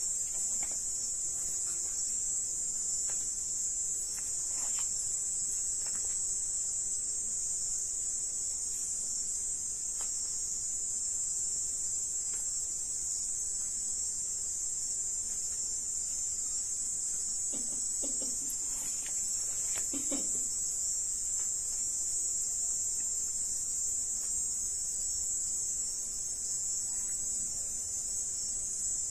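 Crickets chirping in a steady, unbroken high-pitched chorus, with two brief faint noises about two-thirds of the way through.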